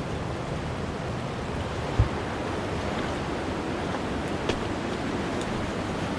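Steady rushing of river water, with one low thump about two seconds in and a light click a couple of seconds later.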